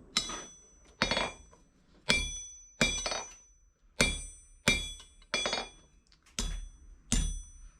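Hand hammer striking a bar on the horn of a 66 lb London pattern anvil, flattening it: about ten blows at a little under one a second, each with a brief metallic ring.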